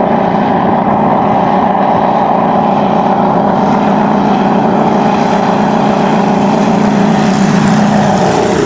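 Aircraft engine running at a steady pitch: a loud, even drone.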